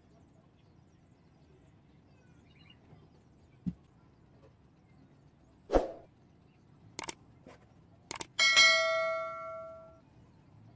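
Kitchenware being handled: a few knocks and clicks, then a dish is struck and rings with a bell-like clang that fades away over about a second and a half.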